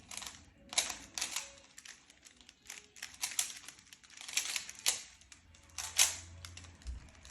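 Rubik's cubes being twisted by hand: the plastic layers clack and click in quick, irregular runs of turns.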